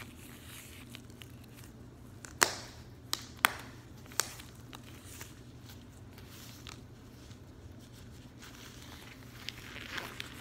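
Latex gloves being rubbed and stretched by gloved hands, soft crinkling with four sharp snaps a couple of seconds in, and louder rustling near the end.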